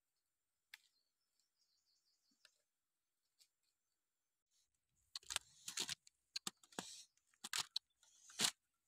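Faint clicks at first, then from about five seconds in a run of short crackling rustles of leaves and fruit stems as clusters of small yellow fruit are picked. The loudest rustle comes near the end, as a cluster goes into a woven wicker basket.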